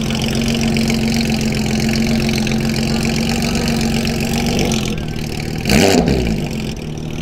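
Porsche 992 GT3 RS's naturally aspirated flat-six, straight-piped through a Soul exhaust, running at low speed with a steady note. Near the end comes one short throttle blip, rising and falling in pitch, which is the loudest moment.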